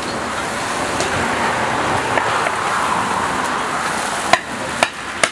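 Steady sizzling of food frying in hot oil in a large plov cauldron, with three sharp knocks in the last second or so.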